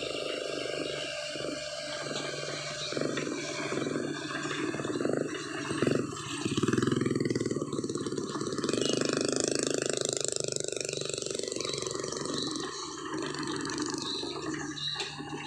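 Heavy earthmoving machine's diesel engine running with a steady low hum, swelling louder for several seconds midway through.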